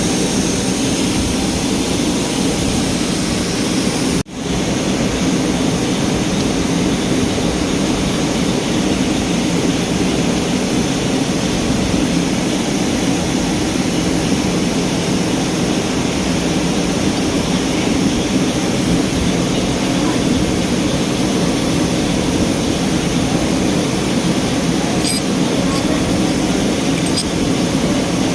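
Ford Ranger 2.2L engine running steadily. The sound drops out briefly about four seconds in.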